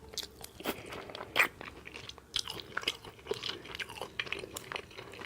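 A person chewing shrimp with the mouth open, wet smacking and crunching at irregular intervals, with one sharper smack about a second and a half in.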